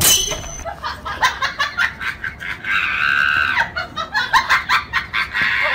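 People laughing in quick bursts, with one long high-pitched squeal about three seconds in.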